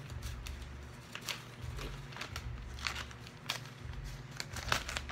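A courier mailer package being torn open by hand: scattered crinkles and tearing crackles.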